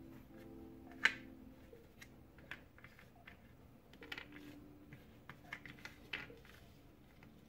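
Cardboard jigsaw puzzle pieces being picked up, slid across a tabletop and pressed together by hand: scattered light clicks and taps, with one sharper click about a second in.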